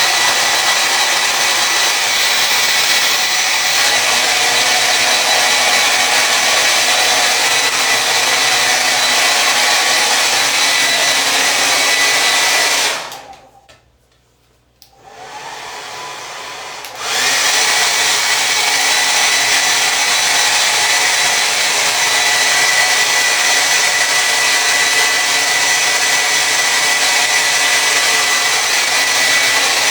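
Hair dryer running, a steady rush of blown air with a faint whine. About 13 seconds in it cuts out for about two seconds, comes back at a lower level for a couple of seconds, then returns to full.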